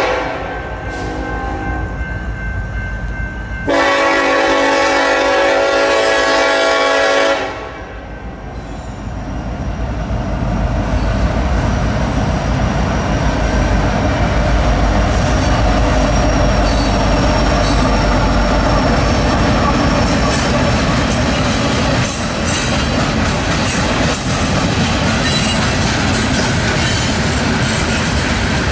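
Freight locomotive air horn sounding two blasts, the second about three and a half seconds long. Then the train passes close by with a steady rumble and clickety-clack of wheels on the rails.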